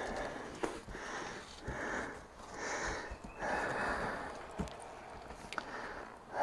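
A person breathing hard with effort, one heavy breath about every second, with a few light clicks in between.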